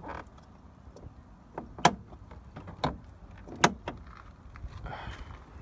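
Hood release lever under a car's dashboard being pulled again and again: three loud sharp plastic clicks about a second apart among fainter knocks, with the hood failing to release.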